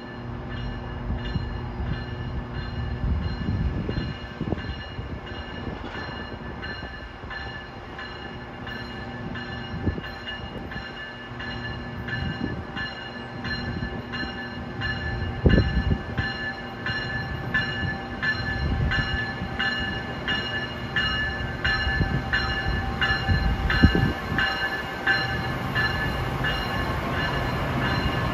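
Pair of Amtrak ACS-64 electric locomotives running light at slow speed, their bell ringing steadily over and over. Under the bell is a low electrical hum, with occasional low thumps as the wheels cross rail joints and switches.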